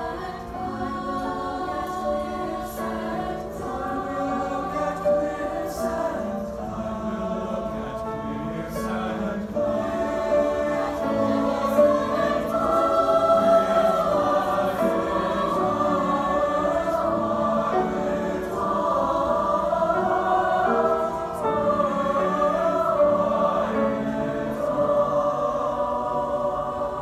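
Large mixed choir of male and female voices singing in harmony, swelling louder about halfway through.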